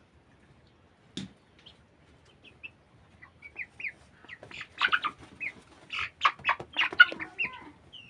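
Broiler chickens clucking and giving short high calls, sparse at first and then busy and louder through the second half, with one knock about a second in.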